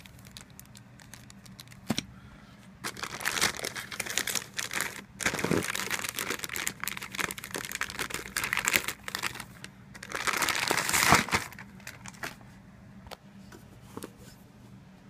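Clear plastic wrapping crinkling and rustling in bursts as it is handled and pulled off an amplifier, with a few sharp clicks between the bursts. The loudest burst comes a little past two-thirds of the way in.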